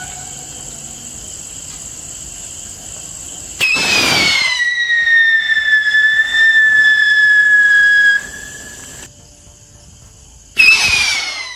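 Coronation Fireworks Challenger whistling rocket launching with a sudden rush of noise, then a loud whistle that drops in pitch at once and then holds, lasting about four seconds as it climbs. Near the end a second launch gives the same rush and falling whistle.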